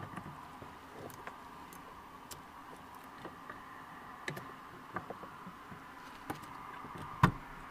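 Plastic electrical plug being pushed onto the MINI Cooper S fuel pump sending-unit flange by gloved fingers: scattered light clicks and ticks, then one sharp, much louder click near the end as the connector latches. A faint steady high hum runs underneath.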